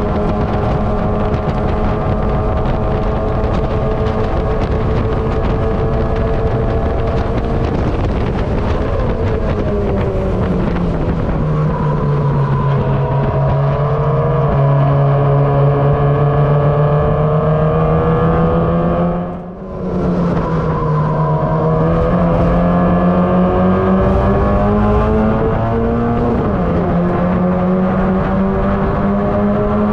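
Mazda MX-5 race car's four-cylinder engine running hard at racing speed, heard through an onboard camera. The engine note falls a little before halfway and stays lower for a while, cuts out briefly about two-thirds through, then climbs again, with a step down at a gear change near the end.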